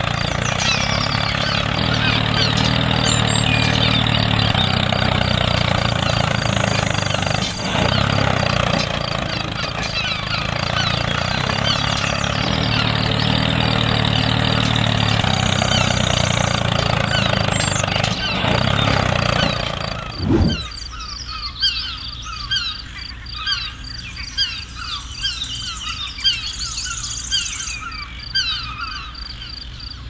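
An engine runs steadily for about two-thirds of the time, with birds chirping over it. Then a short thud comes and the engine sound drops away, leaving the birds chirping.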